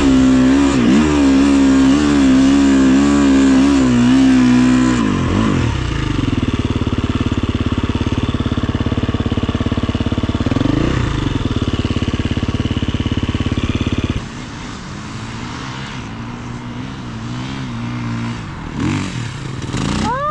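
Husqvarna FE 350 single-cylinder four-stroke dirt bike engine pulling up a steep dirt climb, its pitch wavering with the throttle, then settling to a steady idle about five seconds in. The sound drops sharply about fourteen seconds in, and other dirt bikes rev up near the end.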